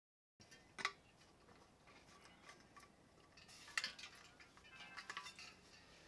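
Near silence: faint room tone with a few small clicks and light taps, a sharper click a little under a second in and another about four seconds in.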